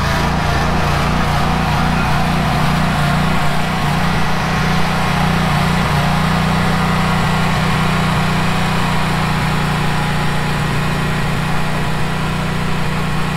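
Generac GP15000E 15,000-watt portable generator's V-twin engine running at full governed speed with its idle control switched off and no load connected. It wavers slightly for the first few seconds, then settles into a loud, even drone.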